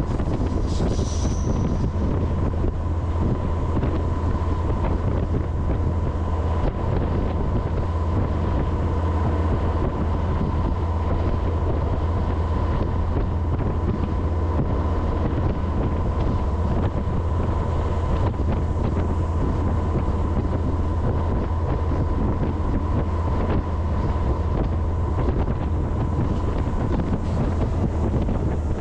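Freight train running steadily: a deep continuous rumble with a thin steady tone through it and wind buffeting the microphone.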